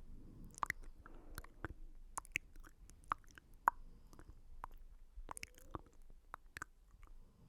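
Close-miked ASMR mouth sounds: irregular wet clicks and smacks, several a second, with soft squishy noises between them.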